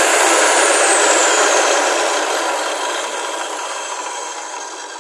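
INGCO 2200-watt circular saw spinning down with a high whine that falls over the first couple of seconds. The noise of the blade fades away steadily after that.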